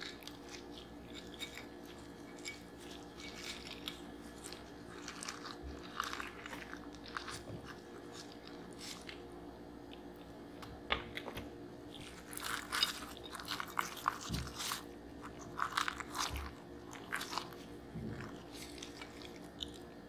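Crispy breaded fried chicken drumsticks handled in gloved hands and dipped in a bowl of thick red sauce: irregular crackling and crunching of the crust with wet sauce sounds, busiest from about twelve to seventeen seconds in.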